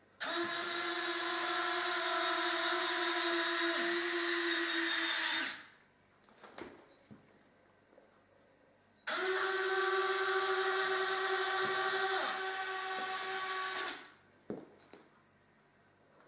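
Small electric motor driving an F-104 landing gear mechanism, running at a steady pitch for about five seconds, stopping, then running again for about five seconds; a few light clicks follow each run.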